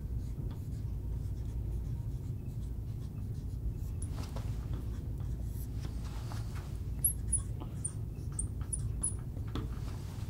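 Marker writing on a glass lightboard: faint scratchy strokes, then a quick run of short high squeaks about seven to nine seconds in, over a steady low background hum.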